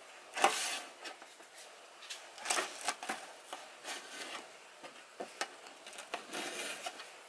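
Kitchen knife slicing green chillies lengthwise on a metal plate: irregular taps and scrapes of the blade against the metal, the loudest about half a second in.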